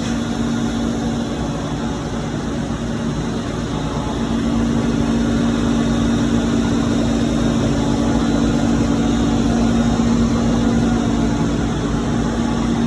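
A large 53-inch industrial wood planer running with a steady hum and a noisy rush of cutting, growing louder about four seconds in.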